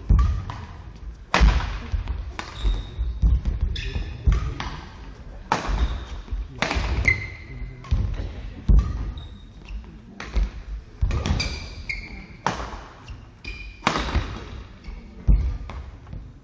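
Badminton rally: rackets strike the shuttlecock with a sharp crack about once every second or so. Between the hits, shoes squeak and feet thud on the court floor.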